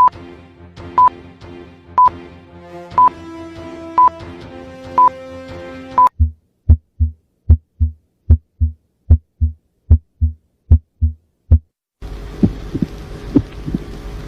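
Heart sounds: low, dull thumps at a steady heartbeat pace, clean with silence between beats from about six seconds in, then from about twelve seconds over a steady hum and hiss. Before that, held musical tones with a sharp high beep once a second.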